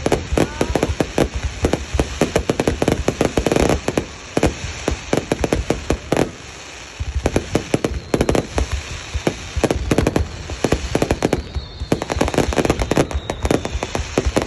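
Fireworks going off in dense, rapid volleys of bangs and crackles, with a short lull about six to seven seconds in before the volleys start again.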